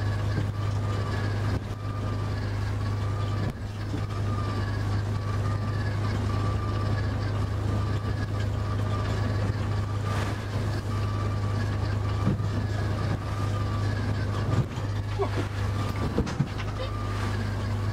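Boat engine running steadily in the wheelhouse as the boat drives through choppy sea: a constant low hum with a wavering whine above it, and now and then a sudden knock as waves and spray hit the hull and windscreen.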